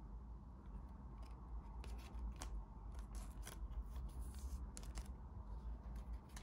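Trading cards and their foil pack being handled: a run of short, scratchy clicks and rustles, busiest in the middle, over a low steady hum.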